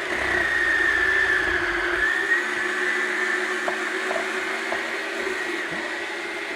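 Yonanas Classic frozen-treat maker's motor running with a steady whine as its blade grinds frozen strawberries and banana pushed down the chute. A low rumble in the first two seconds, while the whine sags slightly under the load, then a few light clicks.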